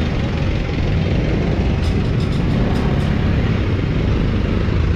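Street traffic: a steady low rumble of vehicle engines, with a few faint clicks about two to three seconds in.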